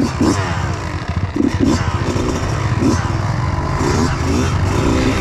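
Kawasaki KX85 two-stroke dirt bike engine revving in a string of short throttle blips over a steady low rumble, heard from on board while riding tight trail.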